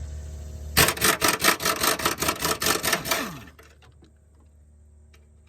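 Heavy impact wrench hammering a motor mount bolt loose: a rapid run of sharp strikes starting about a second in and lasting about two and a half seconds, then winding down.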